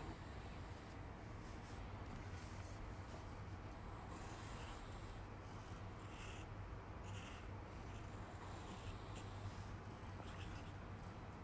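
Pencil scratching and rubbing on paper in short strokes as lines are drawn, faint, over a steady low hum.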